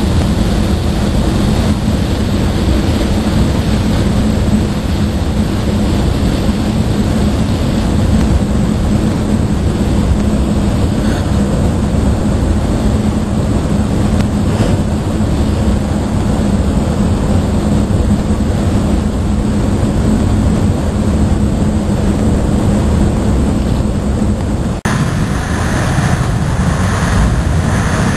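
Steady, loud drone of heavy engines with a constant low hum. About 25 s in the sound changes abruptly and brings in more hissing mid-range noise.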